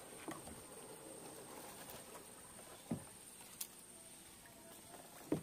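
Faint scattered clicks and soft knocks from hands handling fishing line and gear in a small boat, with a dull thump about three seconds in.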